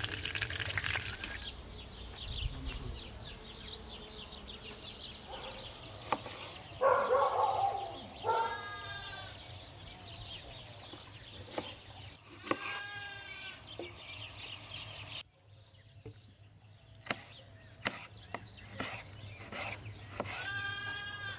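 A farm animal bleating three times, a few seconds apart, each a wavering pitched cry. In between come a few sharp clicks of a kitchen knife on a wooden cutting board.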